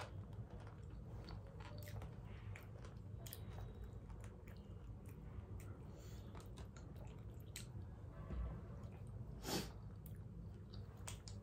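Chewing and biting of food, with scattered small wet clicks and crunches and one sharper click about nine and a half seconds in.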